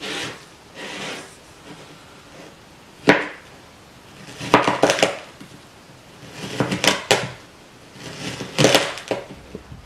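Packed kinetic sand crunching as it is pressed and then sliced into strips with a thin plastic cutter on a wooden board. There are short crunches near the start, a sharp tap about three seconds in, then three clusters of crisp cutting crunches.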